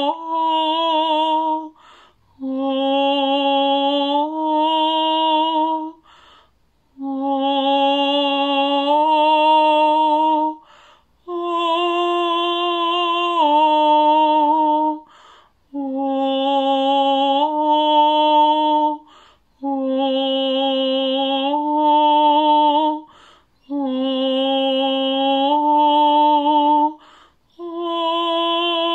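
A woman singing long wordless vowel tones for a sound meditation. She holds about seven phrases of three to four seconds each, every one stepping to a new pitch partway through, with short breaths between them.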